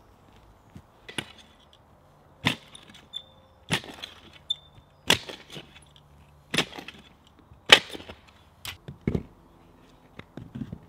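Sharp knocks, about eight, roughly one every second and a quarter, of a hand tool striking the large stones of a fire-pit ring as they are set into place, some blows leaving a brief ringing.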